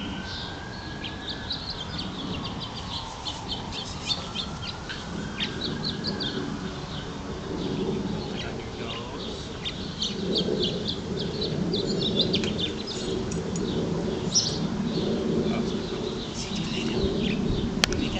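Small birds chirping over and over, with short high chirps all through. A slow whistle-like glide rises and falls twice in the first several seconds, and a low murmur comes in during the second half.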